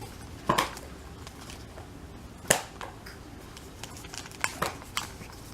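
Crinkling and taps from handling plastic-wrapped packets of Jamberry nail wraps: a few short, sharp rustles and clicks, the loudest about half a second in and about two and a half seconds in, then a small cluster near the end.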